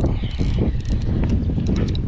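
Wind rumbling steadily on the microphone, with a scatter of short sharp clicks and taps over it.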